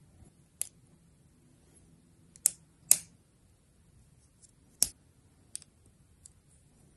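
Hard plastic Gunpla model-kit parts, the backpack wing pieces of an MGSD Freedom Gundam, clicking and snapping as they are handled and pressed together: about six sharp clicks, the loudest two in quick succession near the middle and one more a couple of seconds later.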